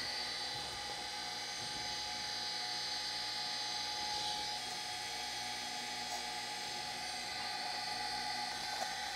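Surface grinder running with a steady whine, its wheel grinding the land of an end mill held in a grinding fixture.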